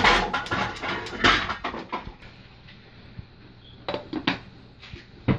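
A gas range burner knob is turned, with a rapid run of igniter clicks over the first two seconds as the burner lights. About four seconds in, a glass pot lid clinks down onto the saucepan, and a sharp knock follows near the end.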